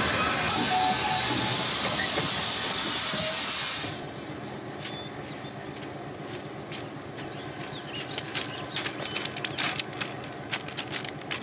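A JŽ 441 electric locomotive, standing on the track, gives a loud steady hiss of air for about four seconds, which cuts off sharply. Then come irregular footsteps crunching on the track ballast.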